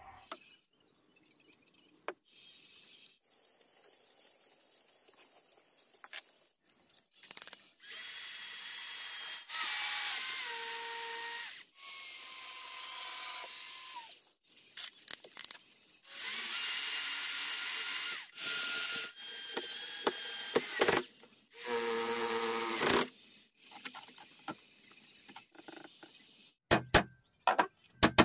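Cordless electric drill boring into wood in several short runs, its high motor whine dropping in pitch as the bit loads. A few sharp hammer strikes near the end.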